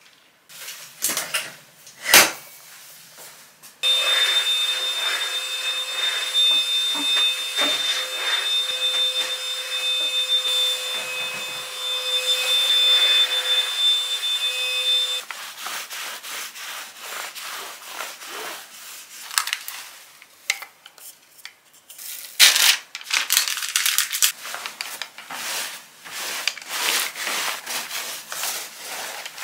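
Household vacuum cleaner switched on about four seconds in, running with a steady whine for about eleven seconds, then switched off. Before and after it, cloth rustling and flapping as bedding is shaken out.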